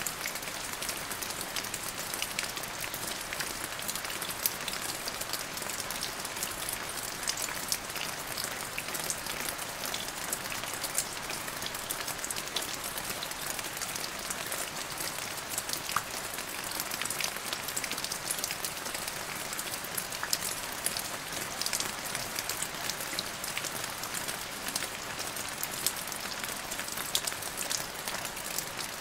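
Steady light rain falling on a wet paved path and into a shallow puddle, a constant hiss spotted with many small drop ticks.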